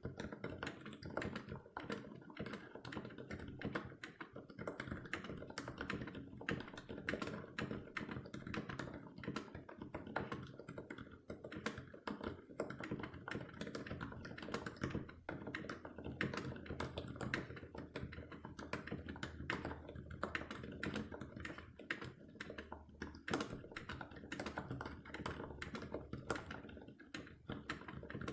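Steady fast typing on a mechanical keyboard with Gateron Silent Black linear switches lubed with Krytox 205g0 and PBT keycaps: a dense run of soft, muted keystrokes without the sharp click of unsilenced switches.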